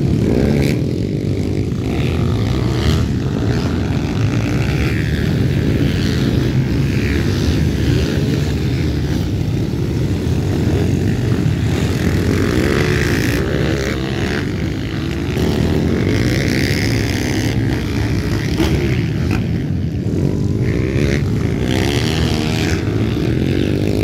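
Several small pit bike engines running and revving together on a dirt track, their pitch rising and falling as riders pass, with a brief dip in loudness about two-thirds of the way through.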